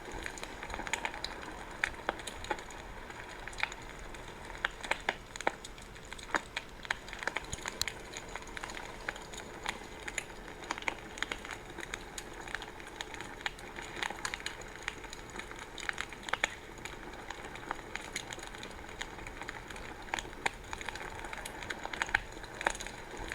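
Wood fire in a fireplace crackling: a steady soft hiss with frequent irregular sharp pops and snaps.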